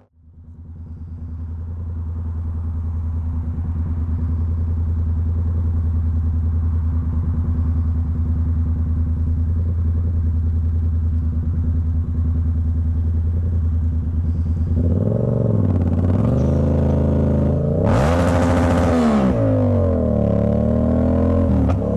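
Yamaha MT-07 parallel-twin engine idling steadily, fading in after a cut. About fifteen seconds in it pulls away, the engine note rising and falling through several gear changes, with a brief loud hiss near the end.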